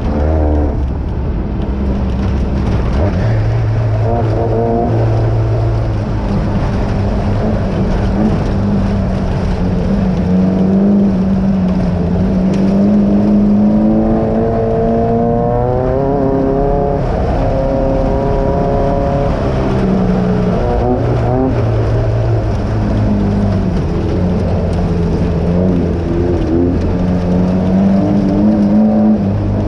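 A Class 9 VW buggy's air-cooled engine running hard, heard from on board, its revs repeatedly rising and falling, with a clear climbing rev about halfway through, over a constant rushing noise.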